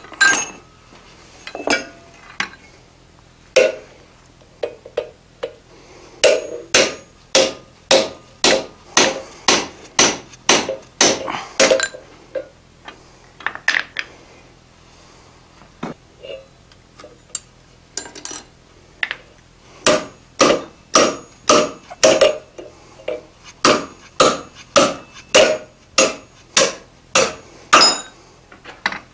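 Hand hammer striking a hot punch driven through a red-hot bar on an anvil, hot punching 3/8 inch round holes. The blows come in runs of about two a second, each a sharp metallic ring, with a sparser stretch in the middle.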